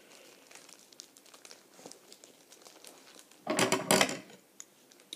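Foil booster-pack wrappers crinkling and rustling as they are handled, faint at first, with one short, loud burst of crinkling about three and a half seconds in.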